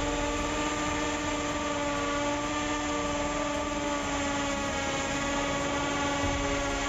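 HUJIA Pro-21321 brushless cordless drill in hammer mode boring a 6 mm masonry bit into a concrete paving block: a steady motor whine over the gritty noise of the bit in concrete, sagging slightly in pitch about halfway through as the bit bites deeper.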